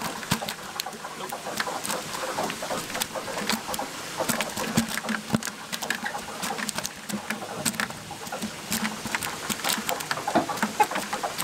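Live bait shrimp in a plastic bucket making a little clicking noise: many small, irregular clicks, scattered densely like patter.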